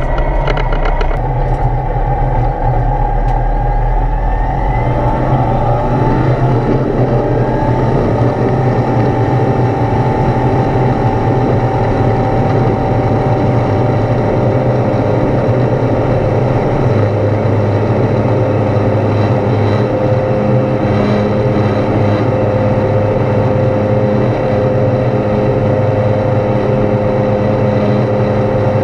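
Foxbat A22LS light aircraft's Rotax 912 engine and propeller, heard from inside the cockpit, opened up to full power about a second in. The pitch rises over the next few seconds during the takeoff roll, then holds steady at full power through lift-off and the climb.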